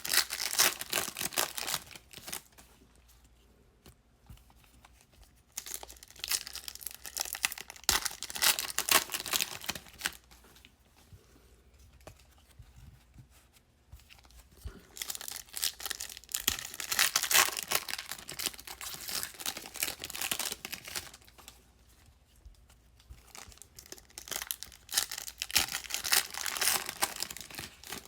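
2016 Panini Contenders football card pack wrappers being torn open and crinkled by hand, in four bouts of crackling with quiet pauses between them.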